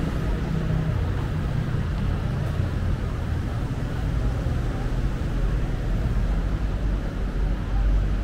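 Steady low rumble of outdoor street ambience, traffic noise with wind buffeting the microphone, the low rumble swelling near the end.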